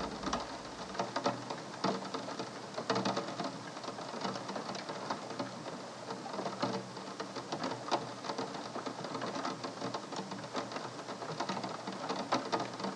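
Rain falling: a dense, irregular patter of many drops hitting a surface, steady throughout.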